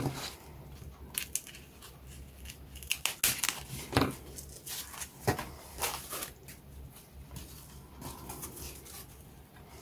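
Thin foam protective sheet rustling and crinkling as it is handled against a plastic model-kit sprue, with irregular crackles and a couple of sharper knocks about four and five seconds in.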